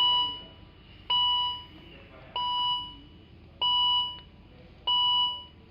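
Volvo XC60 dashboard warning chime beeping repeatedly: five even two-tone beeps, each about half a second long, roughly one every 1.25 seconds. It is sounding for a string of fault warnings such as brake failure, stop safely and shift to P.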